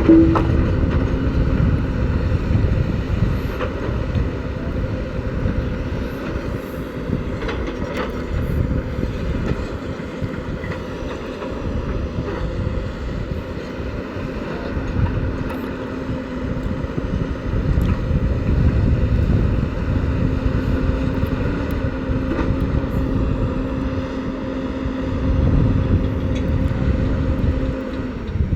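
Heavy diesel engine of earth-moving machinery running steadily: a low rumble with a held hum that swells a little now and then.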